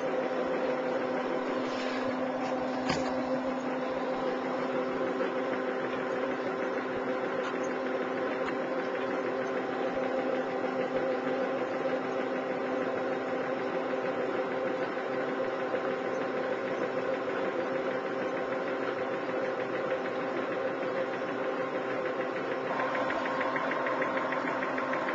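Homemade electric motor on a converted lawnmower running with a steady hum. Near the end a higher buzz joins in.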